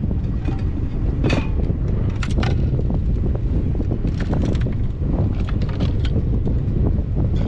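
Strong wind buffeting the microphone as a steady low rumble, with irregular short knocks and splashes over it.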